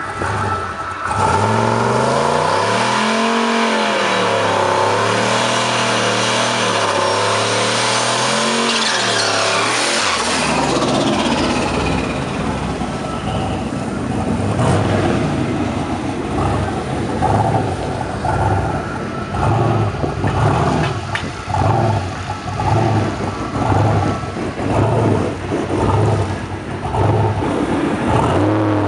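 Turbocharged pickup truck's engine held at high revs during a burnout, its pitch wavering up and down for about nine seconds with the tyres spinning, then cut back. It then runs with an uneven, pulsing rumble about once a second as the truck creeps up to stage.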